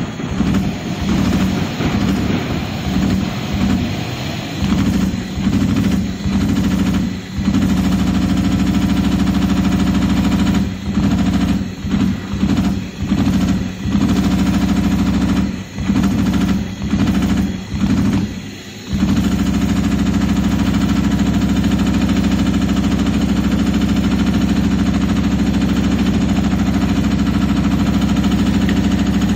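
Automatic CNC leather punching machine running, its punch needles striking through leather in a fast continuous rattle. Through roughly the first twenty seconds it stops briefly many times, then runs without a break.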